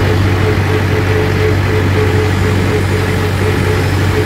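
Mahindra 475 DI tractor's four-cylinder diesel engine running steadily under way, heard from the driver's seat as a loud, even low drone.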